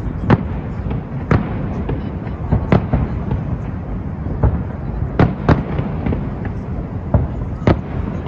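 Fireworks display: aerial shells bursting in sharp, irregular bangs, about a dozen over several seconds, a few louder than the rest, over a steady low rumbling noise.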